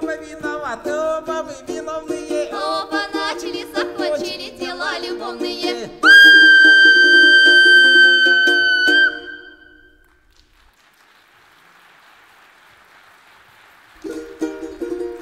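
Russian folk dance music: a lively tune with a gliding melody over plucked strings and stamping feet. It ends about six seconds in on a loud, high held note lasting about three seconds, then gives way to a few seconds of faint noise before plucked-string music starts again near the end.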